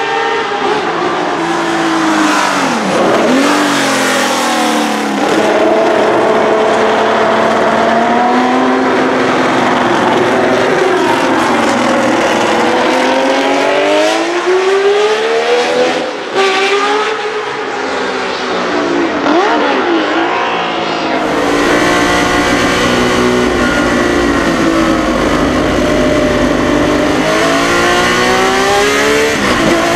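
Tecno PA 123/3 Formula One car's 3-litre 180° V12 engine at racing speed, rising and falling in pitch again and again as it revs up and drops back. About 21 seconds in the sound turns closer and steadier, with more low rumble, recorded onboard.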